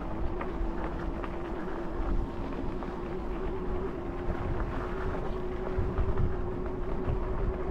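Wired Cruiser e-bike's electric motor whining at a steady pitch that rises slightly near the end, over wind buffeting the microphone and the rumble of tyres on a dirt trail with scattered small clicks.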